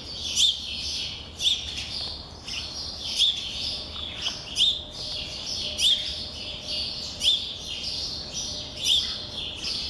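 Songbirds chirping: one bird repeats a short, high chirp about every second and a half, with other fainter chirps around it.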